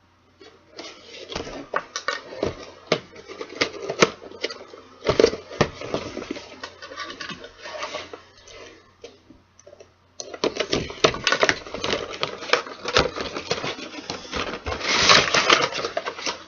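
A toy figure's cardboard-and-plastic packaging being opened by hand: rustling and scraping with many sharp clicks and taps, easing off briefly about ten seconds in before starting again.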